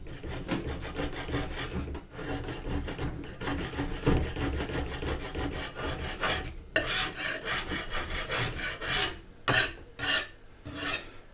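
Metal scraper scraping chemically softened varnish off a wooden tabletop in quick repeated rasping strokes, with a few brief pauses in the second half.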